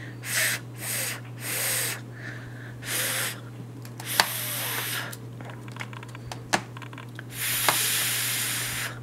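A woman repeatedly voicing the unvoiced phonics sound "fff" for the letter f, as several separate hisses with the last and longest near the end. A few sharp clicks come as magnetic letter tiles are moved on the whiteboard.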